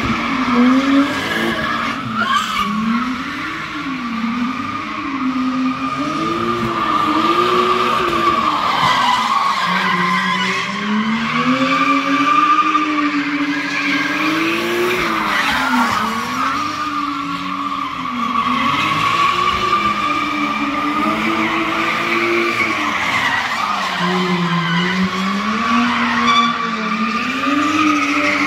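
Drift cars sliding through the turns, their engines rising and falling in revs over steady tire squeal.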